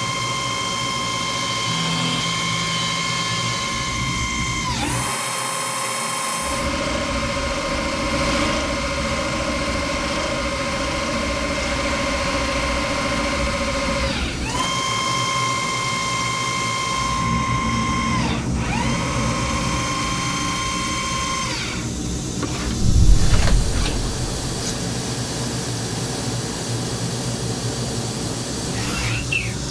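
Tornos DT 26 Swiss-type CNC lathe machining a brass bone screw: a steady spindle whine with cutting noise, its pitch dropping and climbing back several times as the spindle changes speed. About 23 seconds in comes a loud low rush lasting about a second.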